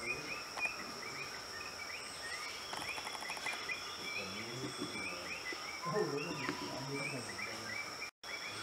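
Tropical rainforest ambience: a steady high-pitched insect drone under many short, quickly repeated chirping calls from small animals, with one brief rapid rattle about three seconds in. The sound cuts out for a moment near the end.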